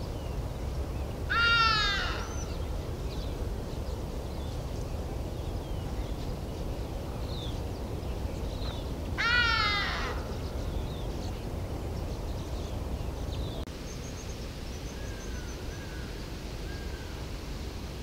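A large bird gives two loud, drawn-out calls about eight seconds apart, each under a second long and dropping in pitch at the end, over a steady low rumble.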